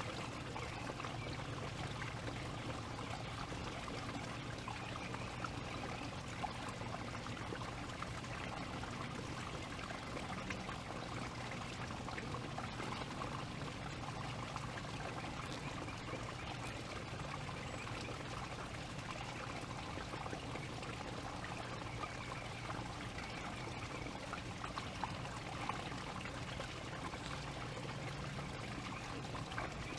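Steady rushing background noise with a faint low hum underneath and a few light ticks.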